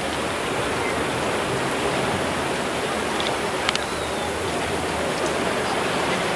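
Steady rushing noise of rough, choppy sea water and surf churning around the rock jetty, stirred by a strong wind.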